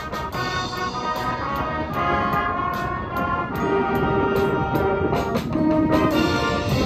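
School brass band playing a send-off tune: held brass chords over a steady beat of drum hits.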